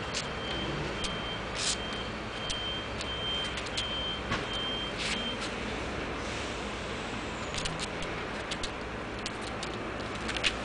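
A high-pitched electronic beep sounds over and over during the first half, then stops. Under it runs a steady traffic noise, and scattered sharp clicks come throughout.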